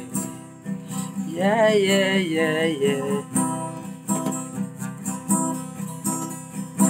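Acoustic guitar strummed steadily in chords, with a man's voice holding a short wordless sung line about a second and a half in.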